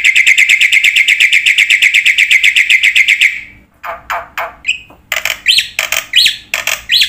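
A bird calling: a rapid run of repeated notes, about ten a second, for roughly three seconds, then, after a short pause, separate harsher calls, several of them sweeping upward in pitch.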